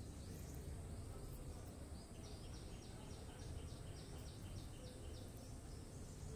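A small bird chirping a quick run of short, high notes, about four a second, from about two seconds in to about five seconds in, over a faint low hum.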